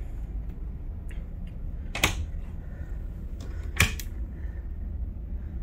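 Two sharp clicks of wooden cabinet doors being opened and shut, their catches snapping, the second about two seconds after the first, over a low steady hum.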